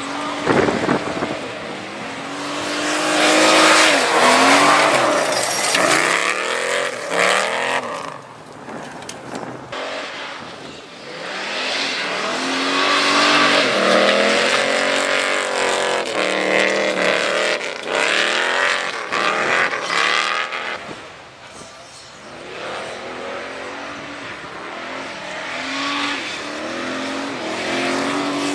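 1949 Ford custom's engine revving hard and easing off again and again as the car slides through dirt corners, its pitch rising and falling with each throttle burst, over the hiss of tyres spraying loose dirt. It is loudest a few seconds in and again about halfway, and drops away twice in between.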